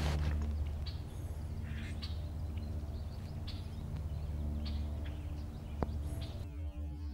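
Small birds chirping in short, scattered calls over a low, steady rumble.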